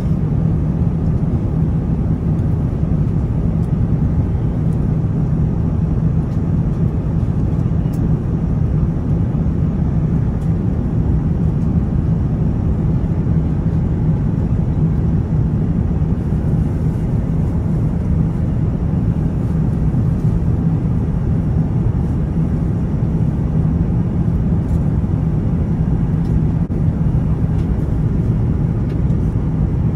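Steady cabin noise inside an Airbus A350-900 in flight: a constant low hum from its Rolls-Royce Trent XWB engines and the airflow, unchanging throughout.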